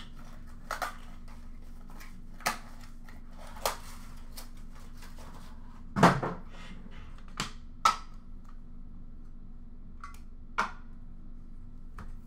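Hard plastic card cases being handled in a plastic bin: a string of sharp clicks and knocks, the loudest about six seconds in.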